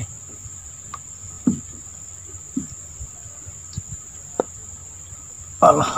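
Insects chirring steadily at a high pitch, with a few faint knocks and a man's voice starting just before the end.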